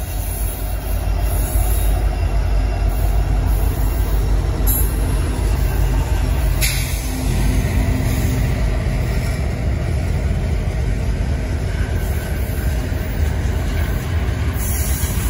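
Union Pacific freight train rolling past close by: a diesel locomotive, then boxcars and tank cars, a loud steady rumble of steel wheels on rails. A couple of short clanks come midway.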